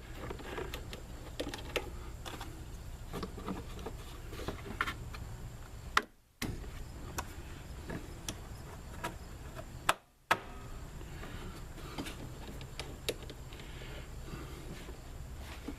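Scattered light clicks and clatter of hand tools and parts being handled during reassembly, over a steady low hum. A sharp click comes about six seconds in and again about ten seconds in, each followed by the sound cutting out for a moment.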